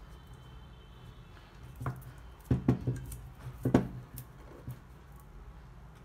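A handful of dull knocks and taps as two large 3000 F supercapacitor cans are handled and turned on a cutting mat, bumping against each other and the mat, with most of them bunched near the middle.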